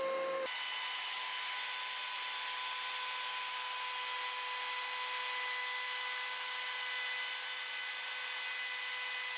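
A power tool running steadily on wood, with a constant whine over a noisy hiss; the sound changes abruptly about half a second in, then holds steady.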